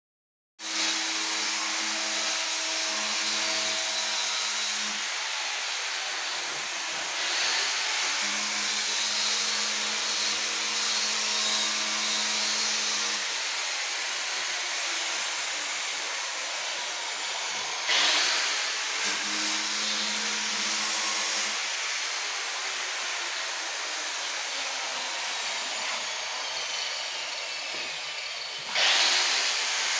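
Electric power tool running continuously, a steady hissing whir over a low hum, with sudden louder surges about a quarter of the way in, just past halfway, and near the end.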